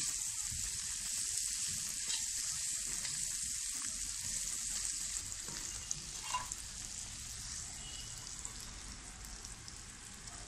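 Chopped green beans frying in oil in a black cooking pot, sizzling steadily, with a metal spoon clicking against the pot as they are stirred. The sizzle eases off a little toward the end.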